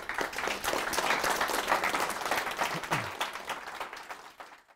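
A small audience applauding, strong at once, tapering over the last couple of seconds, then cut off abruptly near the end.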